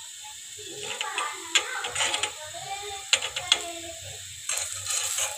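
Steel spoon scraping and tapping against the rim of an iron pan as a rice-batter roti cooks, a series of scattered metallic clicks and scrapes, with faint voices in the background.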